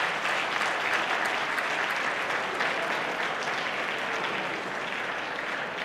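Audience applauding, a dense patter of many hands clapping that slowly tapers off near the end.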